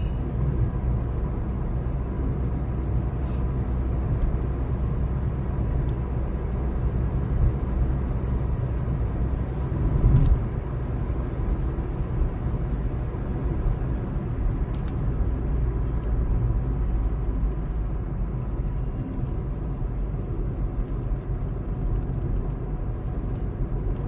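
Steady low rumble of engine and tyre noise heard inside a moving car's cabin, with a brief louder bump about ten seconds in.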